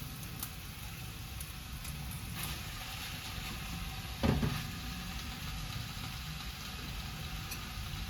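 Food sizzling in a pan over a steady low hum, with a single louder knock about four seconds in and a few faint clicks.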